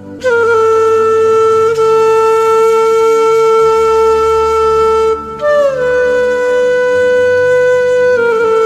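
Background music: a flute-like wind instrument holding long, sustained notes over a steady low drone. It holds one note for about five seconds, slides up to a slightly higher note, then slides back down near the end.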